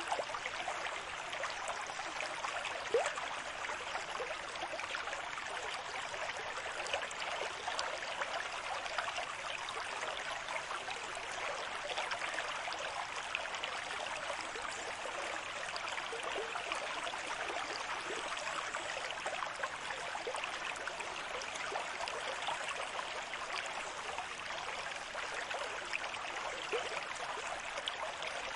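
Steady rush of water, dense with small splashes and trickles, holding an even level throughout without slow surges.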